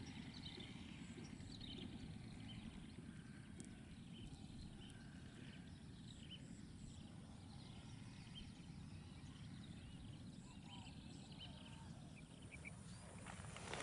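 Faint, high, short whistling calls of a flock of lesser whistling ducks, repeated every second or so over a steady low background rumble.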